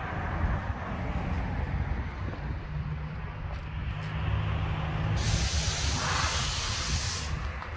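Road traffic passing, with a low rumble throughout and a steady engine hum in the middle. About five seconds in, a loud hiss starts suddenly, lasts about two seconds and then cuts off.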